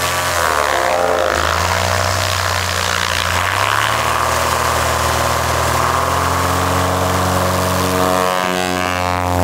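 Super 22 Bushmaster light aircraft's engine and propeller running at takeoff power on its ski takeoff run, steady and loud. Near the end it shifts in pitch as the plane passes close by.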